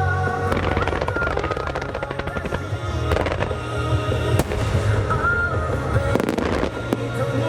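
Fireworks going off in rapid crackling volleys of sharp pops, with a single sharp bang about four and a half seconds in and another dense volley around six seconds in, over a music soundtrack.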